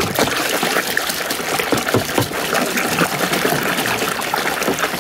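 Muddy, soapy water sloshing and splashing in a plastic basin as a hand scrubs a plastic toy mask under the surface. The splashing is steady, with many small slaps, and stops at the end.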